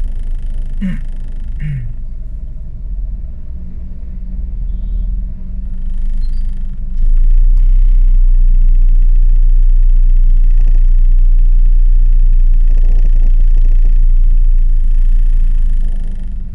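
Low, steady rumble of traffic and an idling car heard from inside the stopped car's cabin. About seven seconds in the rumble grows louder and holds steady, then eases off near the end. Two brief higher sounds come about one and two seconds in.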